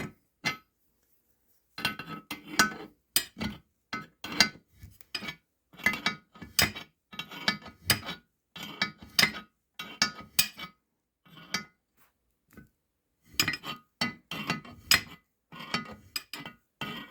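Irregular sharp metallic clicks and clinks of a wrench working a gear puller's screw against an outboard gear case, pulling a part that is coming loose and is almost out.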